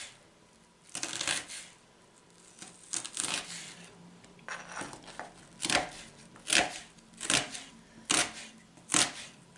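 Kitchen knife slicing an onion into half rings on a plastic cutting board: a crisp cut ending in a knock on the board, about eight strokes, slow and uneven at first, then steady at a little over one a second in the second half.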